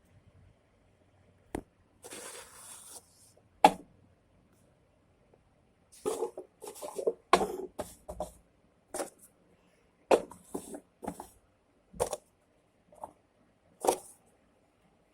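Cups being handled and set down on a surface to build a target stack: a run of short knocks and clacks, with a brief scraping rustle about two seconds in.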